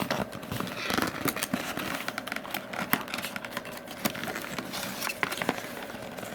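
Packaging being handled while unboxing an alarm clock: a string of irregular clicks, rustles and crackles as the clock and its cord are worked loose from the box.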